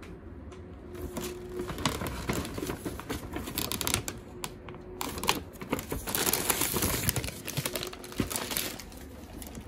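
Paper takeout bags rustling and crinkling as hands reach in and pull out the food, with many quick, irregular crackles and clicks. The handling is busiest around six to seven seconds in.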